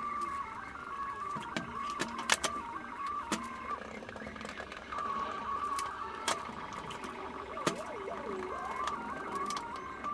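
Scattered knocks and clicks of glued wooden blocks being handled and stacked, with a kettlebell set on the stack as a clamping weight. A faint wavering high tone runs underneath.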